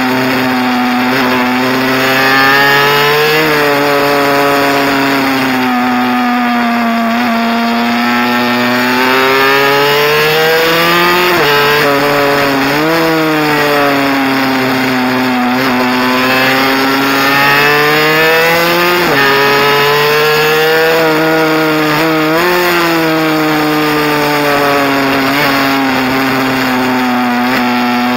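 Mini bike's small engine heard close up from the bike on a track lap, its note climbing steadily under throttle and falling off again, over and over, with several sudden dips and jumps in pitch as the rider shifts and rolls off.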